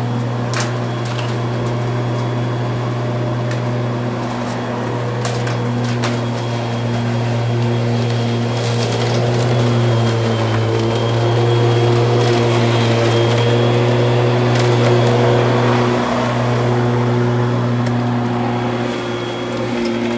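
Lawn mower running steadily, a low even hum that gets a little louder midway and eases back near the end, with a few sharp clicks over it.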